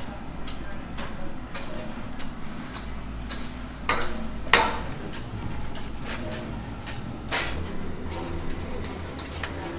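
Irregular clicks and light knocks of hand tools on rubber as a repair patch is fitted inside a truck tire over its sidewall damage, the loudest two about four seconds in, over a steady low hum.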